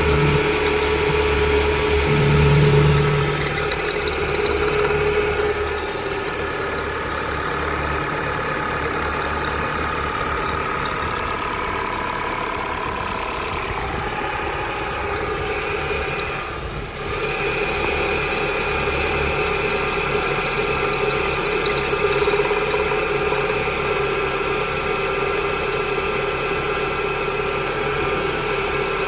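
Car engine idling cold with a metallic knocking, which the owner suspects comes from the power steering pump and says fades once the engine warms up.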